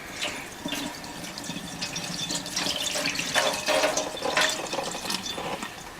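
Liquid pouring and splashing into the plastic tank of a Hoover PowerDash Pet carpet cleaner as it is filled.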